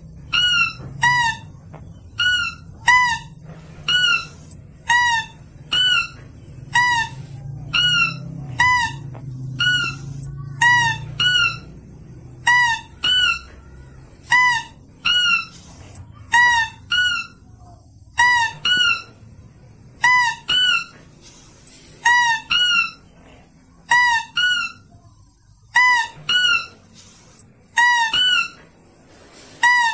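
Lure call for lesser mouse-deer (kancil/pelanduk): short, high, squeaky calls that rise then fall in pitch, repeated about once a second and often in quick pairs. A faint low hum lies under the first half.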